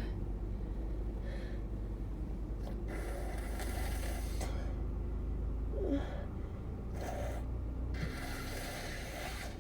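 A congested person blowing their nose: two long, noisy blows about three and eight seconds in, with a short gasp and breaths between, as of a heavy cold or allergies.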